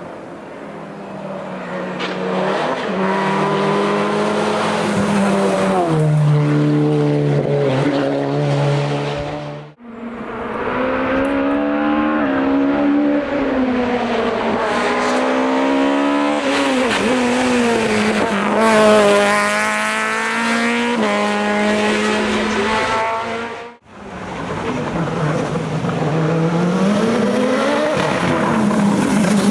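Race car engines at full throttle on a hillclimb, their pitch climbing and dropping again as they shift through the gears. Three separate runs follow one another, with abrupt cuts about ten seconds in and near the end.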